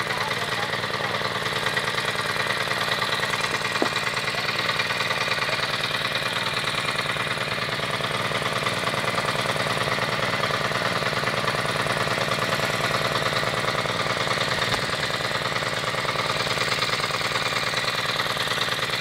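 Petrol engine of a soil compactor running steadily.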